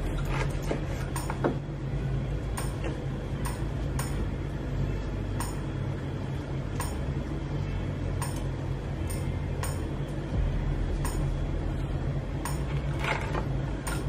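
Kitchen handling sounds: a knife slicing ginger on a plastic cutting board and light clinks against a ceramic plate as ginger slices are tucked into a whole fish. Underneath runs a steady low hum with a regular tick about every 0.7 seconds.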